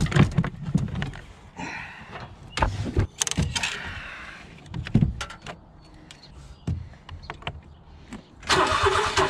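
Clunks and knocks of a car battery being lifted out and a replacement set in and strapped down. About eight and a half seconds in, the starter suddenly cranks over a small Mitsubishi inline three-cylinder engine with an even rhythm; the owner says it sounds okay but could have a dead cylinder.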